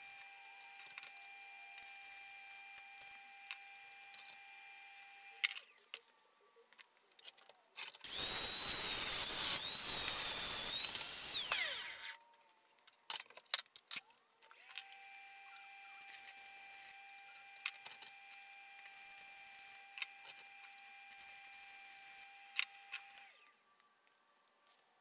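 Stick welding on a steel CV axle shaft: a steady arc sizzle with a fixed electrical whine, stopping about five seconds in. After a few clicks an angle grinder runs loud for about four seconds, its whine wavering as it bites, then a second welding pass of the same sizzle and whine lasts about eight seconds and cuts off near the end.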